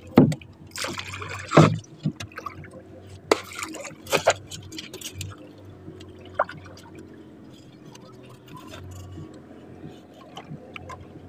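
Seawater splashing and lapping against the wooden hull of a small outrigger boat, with a few louder splashes in the first few seconds, then quieter sloshing and small knocks.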